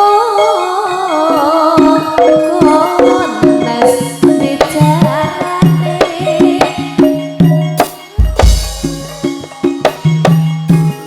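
Live Campursari ensemble playing: hand drums keep a busy rhythm under pitched percussion, with a wavering melodic line over the first few seconds. A deep low stroke rings out about eight seconds in.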